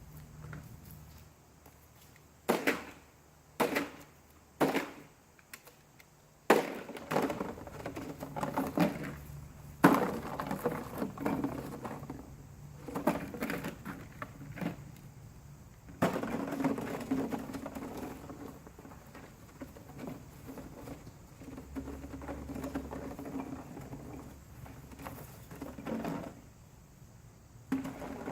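Three short, loud crashing bursts about a second apart, then a long stretch of irregular scraping and crackling as something is dragged over the ground.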